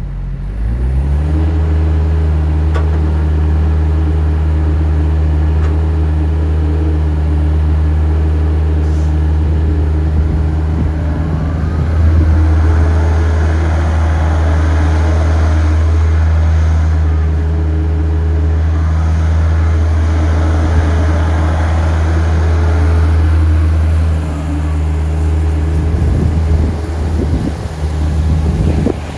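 Terex TC65 midi excavator's diesel engine speeding up during the first second or two, then running steadily. A louder rushing noise rides over it through the middle stretch, and the engine note wavers near the end.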